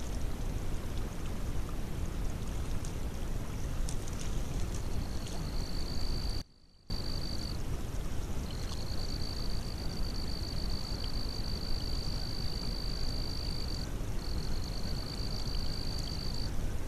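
Steady rush of water running through a beaver dam. Over it, a steady high-pitched trill sounds in three long stretches through the middle, and all sound drops out briefly about six and a half seconds in.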